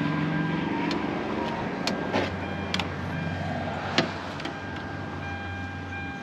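Sharp clicks of a power-window switch being worked, with a steady low electrical hum from the Hyundai Sonata's door that shifts to a lower pitch about two seconds in and cuts off near the end; the driver's window will not go up even with a new window motor fitted.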